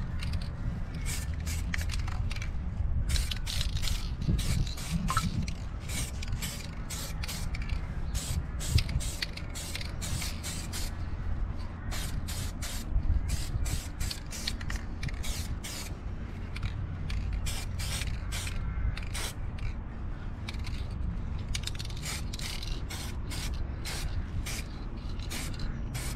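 Aerosol can of spray paint hissing in many short bursts as a coat is sprayed onto a brake caliper, over a steady low rumble.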